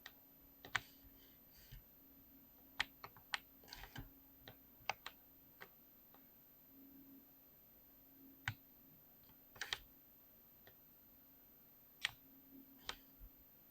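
Keystrokes on a mechanical keyboard with linear switches: single presses and short quick runs of keys at irregular intervals, with a pause of a couple of seconds near the middle. A faint steady hum underneath.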